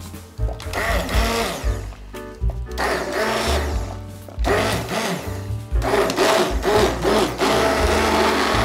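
Handheld immersion blender whirring in a pot of soup, pureeing chunks of leek, potato and parsley. It runs in several bursts with short breaks between them.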